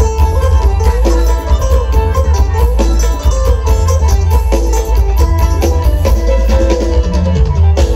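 Live Isan folk music played loud over a stage PA: klong king drums keep a fast, driving beat with heavy bass under a melodic line. The music stops abruptly at the very end.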